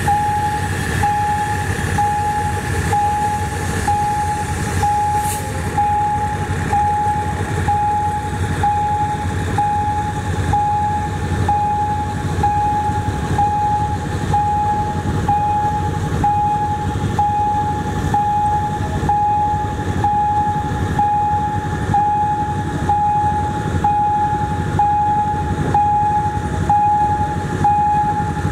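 Level-crossing warning signal beeping evenly, about three beeps every two seconds, over the steady low rumble and wheel clatter of a slow train rolling across the crossing: a diesel locomotive hauling a dead Hanomag steam locomotive.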